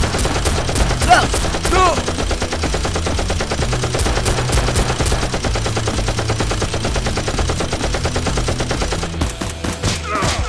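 Rapid automatic gunfire as a sound effect: a dense, continuous rattle of shots that breaks into a few separate shots near the end.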